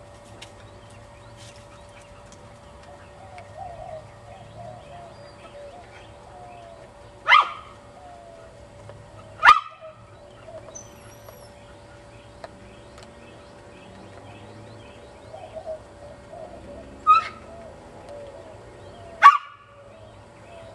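A dog barking: four short barks, a pair about seven to nine and a half seconds in and another pair about seventeen to nineteen seconds in.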